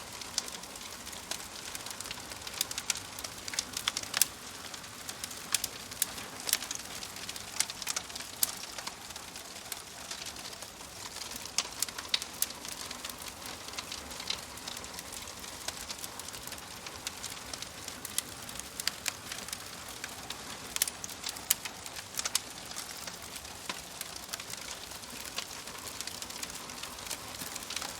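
Wood fire burning in a fireplace: a steady hiss with many irregular sharp crackles and pops from the burning logs.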